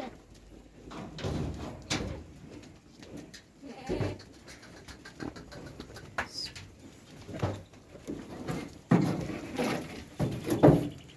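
Goats bleating now and then, strongest near the end, among scattered knocks and shuffling.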